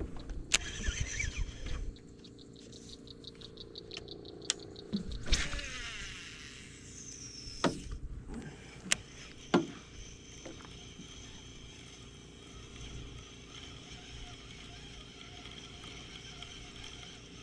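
Baitcasting reel: a run of light, evenly spaced clicks, then a sharp snap and a whirring spool whose pitch falls as the line pays out on the cast. A few clicks follow, then a faint steady whir as the reel is cranked in.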